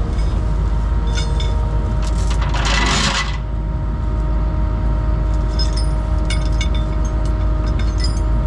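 Engine running steadily, with scattered light metallic clinks and a brief hiss about two and a half seconds in.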